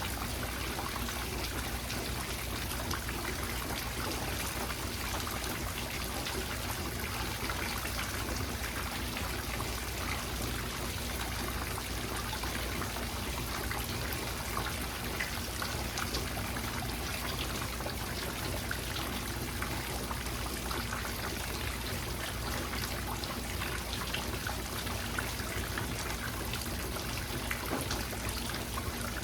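Steady rain with trickling, dripping water and many small drop ticks, an even hiss throughout.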